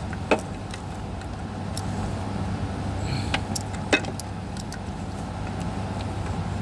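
Sharp clicks and ticks of a jump-pack cable connector being pushed and worked into place by hand, the two loudest just after the start and about four seconds in, over a steady low mechanical hum.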